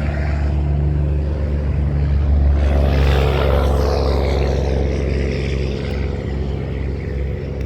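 Engine rumble of a passing motor vehicle: a steady low hum that swells with road noise about two and a half seconds in, then slowly fades.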